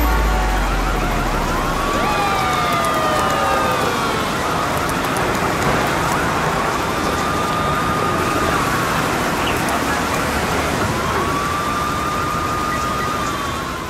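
Steady heavy rain with a police siren wailing: three long wails, each rising, holding its pitch for a few seconds, then falling.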